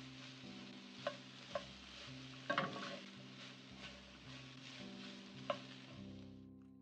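Cauliflower florets sizzling in a nonstick frying pan as a wooden spatula stirs them, with a few sharp knocks of the spatula on the pan, the loudest a short cluster about two and a half seconds in. The sizzling fades out near the end.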